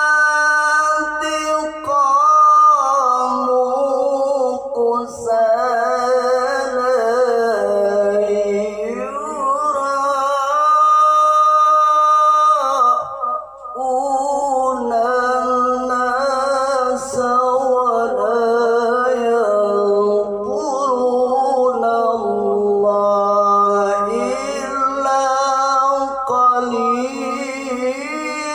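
A man reciting the Quran in the melodic tilawah style: one voice holding long, ornamented notes that slide up and down in pitch, with a short break about halfway.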